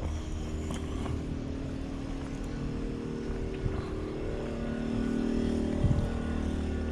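An engine running steadily, a little louder in the second half, with a couple of short knocks.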